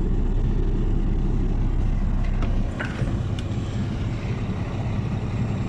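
Truck engine running, heard from inside the cab as a steady low rumble. The deepest part of the rumble drops away about two and a half seconds in, with a few light clicks.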